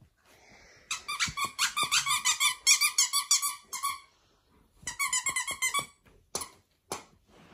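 Squeaker in a plush squirrel dog toy squeezed over and over, giving a quick run of high squeaks for about three seconds, then a shorter run of squeaks about five seconds in. Two soft knocks follow near the end.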